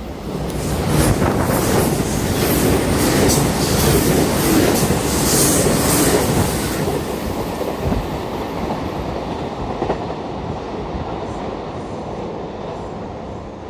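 Electric rapid train passing along the platform: a loud rush of wheels on rail with quick rhythmic clicks over the rail joints, fading away over the last several seconds.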